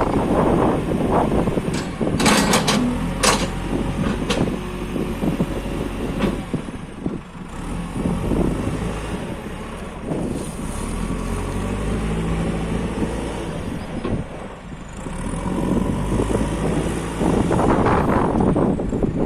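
JCB 3CX backhoe loader's diesel engine running as the machine is worked, its note rising and falling with load. Sharp metal clanks come about two to three seconds in, and a thin whine glides up and down in pitch.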